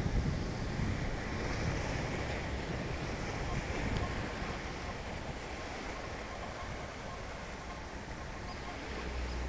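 Wind buffeting the microphone over a steady outdoor hiss, the low rumble strongest in the first few seconds and easing after.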